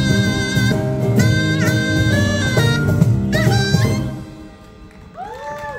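Live music from a Korean traditional (gugak) ensemble: a held wind-instrument melody over a low accompaniment, which stops about four seconds in. A voice follows briefly near the end.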